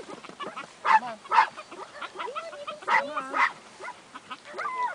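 Glen of Imaal Terrier barking and whining at the quarry in an earthdog tunnel: a string of short barks, in pairs about a second in and around three seconds in, with high gliding whines between them. This is the dog working the rats, frustrated at being kept from them.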